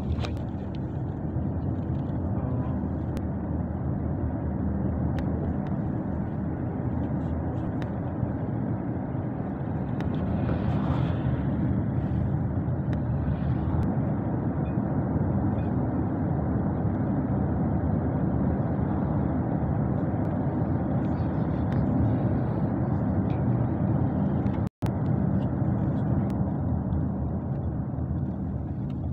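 Steady low rumble of a moving road vehicle: engine drone and road noise, with wind on the microphone. It cuts out for an instant about 25 seconds in.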